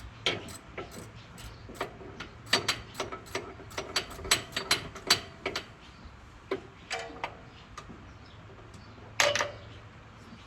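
Ratchet wrench clicking in short runs while the alternator mounting bolts are worked loose, with a louder metal clink near the end.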